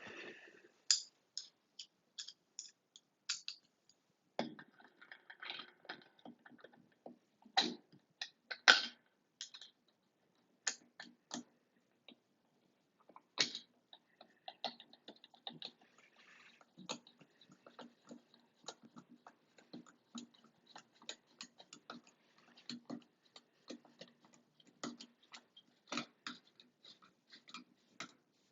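Irregular small clicks and a few sharper knocks of a screwdriver and metal parts being handled, as the two screws that hold a Moen shower faucet's faceplate are driven in.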